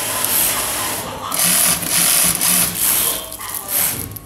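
High-head industrial wig sewing machine stitching a wig cap held on a dome head. It runs in short bursts that stop and start every second or so as the cap is turned under the needle.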